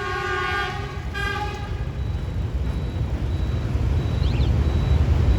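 EM120 locomotive's horn ending a long blast about a second in, then a short toot, blown as a greeting; then the locomotive's low rumble grows steadily louder as it approaches.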